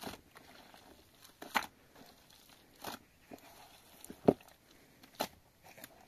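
A handful of separate sharp knocks or crunches at irregular intervals, roughly a second or so apart, the loudest about four seconds in.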